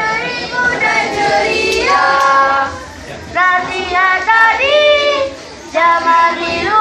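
A group of schoolchildren singing a boria song together in their own live voices.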